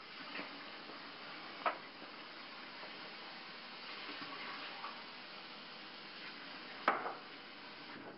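Mung beans simmering in a stainless steel pot on a gas burner, a steady bubbling hiss. There is a light knock about a second and a half in and a louder knock near the end.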